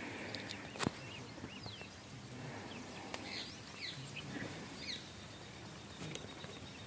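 Faint outdoor ambience with birds chirping now and then in short high calls. There is one sharp click a little under a second in.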